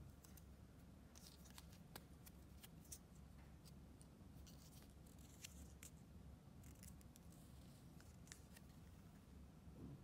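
Faint, scattered clicks and short paper rustles of small doll accessories being handled and set down, over a low steady room hum.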